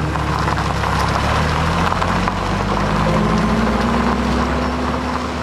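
Vintage sedan's engine running as the car pulls away and drives off down a dirt road, with tyre noise on the loose surface, fading slightly near the end.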